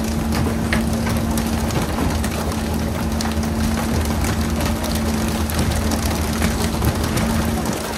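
Pole-and-line tuna fishing boat under way: its engine running with a steady hum beneath a constant hiss of rushing, spraying water, and scattered short knocks and slaps as tuna are flicked aboard onto the deck.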